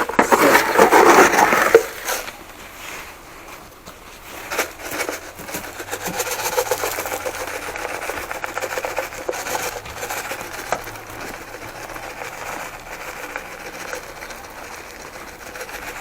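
De-icing salt being spread on a snow-cleared porch: a loud rush of grains for about the first two seconds, then a dense run of small ticks as grains scatter and land.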